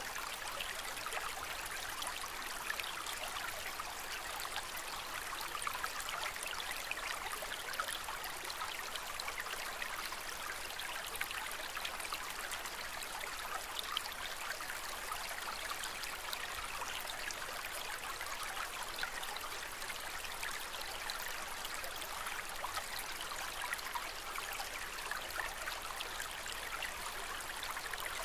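Aquarium water trickling and splashing steadily, a continuous stream-like running of water with a fine crackle and no pauses.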